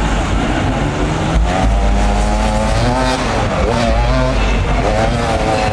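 Enduro dirt bike engines revving hard and unevenly, the pitch rising and falling as riders fight up a steep sandy climb, with a brief knock about a second and a half in.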